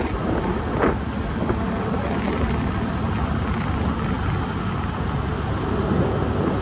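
Steady rumble and rushing noise of an open vehicle driving along a road, with one short knock just under a second in.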